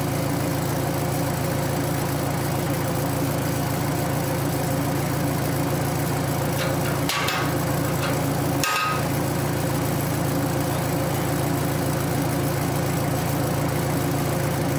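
A 12-inch-gauge miniature railway locomotive's engine running steadily at idle, with two short sharp sounds about seven and nine seconds in.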